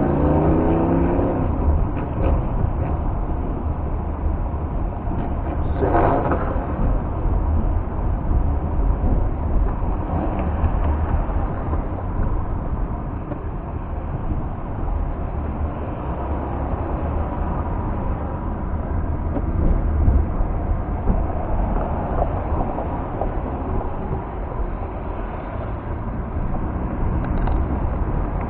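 Steady road noise heard from inside a car cruising on a freeway: a low rumble of tyres and engine with a hiss of passing air and traffic.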